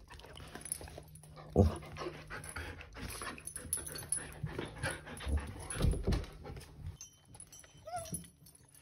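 Excited Siberian huskies panting, with short louder bursts about a second and a half in and again around six seconds, and a brief whine near the end.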